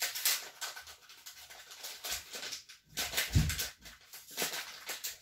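Rustling and scratching of packaging as a small package is unwrapped and handled in an open cardboard box, with a soft thump about three and a half seconds in.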